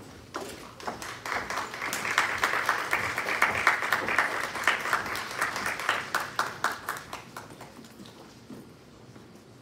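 Audience applause that builds about a second in and dies away near the end, over the click of footsteps on a wooden floor.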